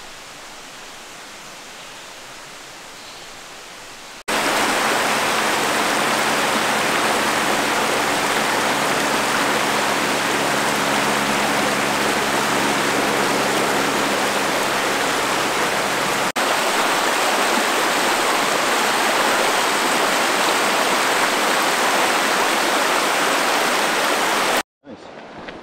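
Shallow rocky creek rushing over stones: a loud, steady rushing of water that comes in suddenly about four seconds in, after a softer outdoor hiss. It jumps at a cut partway through and stops abruptly near the end.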